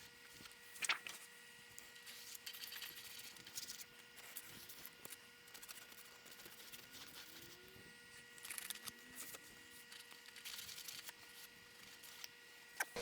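Faint, intermittent scraping with a light click about a second in, over a steady faint hum: the edges of a thin aluminium sheet-metal blank being smoothed by hand.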